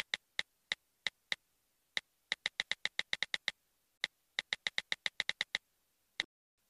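iPhone on-screen keyboard clicks while a text message is typed: a run of short, sharp ticks in quick uneven bursts of several a second, with brief pauses between words.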